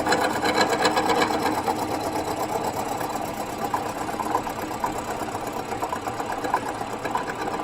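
Bridgeport milling machine with a 2.25-inch four-insert carbide face mill at 450 RPM, taking a light facing cut of just over five thou across a cylinder head's exhaust-port face. It makes a rapid, even rhythm of insert strikes, a little louder at first and easing off slightly.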